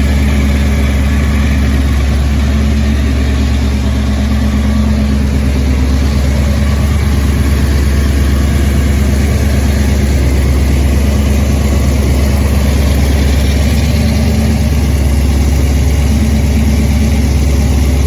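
Engine idling steadily, a loud even low-pitched drone.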